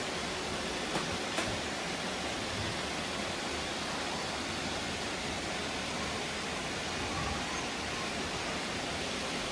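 Many robot vacuums running at once, making a steady, even whirring hiss. Two light clicks sound about a second in.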